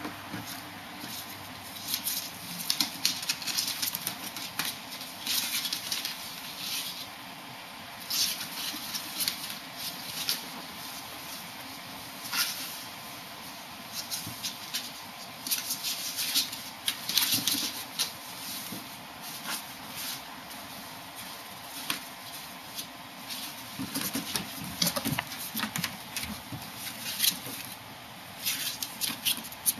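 Irregular scratching and scrabbling of a kitten's and ferrets' claws on a cardboard box and a wooden floor as they tussle, with brief rustles of the cardboard coming in clusters.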